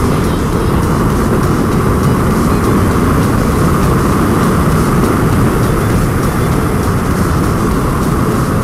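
Steady wind rush on a helmet-mounted microphone over the engine of a 1998 Honda VFR800 V4 motorcycle cruising at a constant speed.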